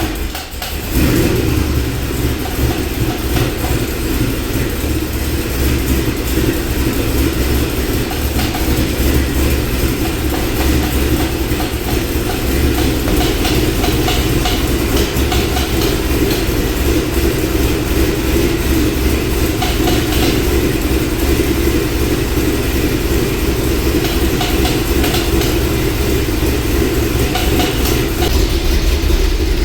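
2008 Corvette Z06's 7.0 L LS7 V8, with a BTR Stage 4 cam, long-tube headers and Corsa Extreme mufflers, running steadily at idle. A valvetrain tap is still there after the fresh oil and ATF, which the owner takes for a collapsed lifter.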